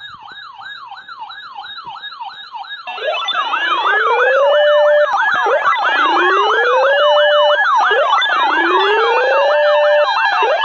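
Several electronic emergency sirens layered together. A fast yelp sweeps up and down about three times a second and grows louder. About three seconds in, more yelps join it, along with a slower wail that rises over a second or so, holds, and drops, three times over.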